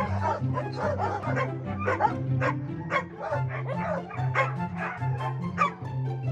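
A litter of puppies yipping and whimpering over and over, with short high cries over background music. The yips stop near the end and the music carries on alone.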